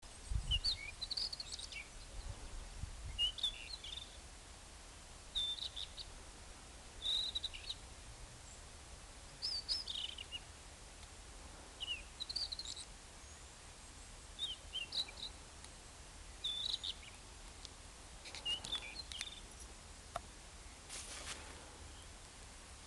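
Rufous bush robin singing: short, varied, high-pitched phrases, each under a second, repeated about every two seconds with pauses between.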